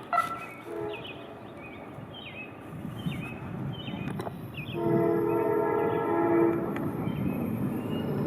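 Diesel passenger train's air horn sounding as it approaches: a short toot at the start, another brief one about a second in, then a long blast about five seconds in, over the train's steady rumble. The horn is a warning for work equipment on the adjacent track.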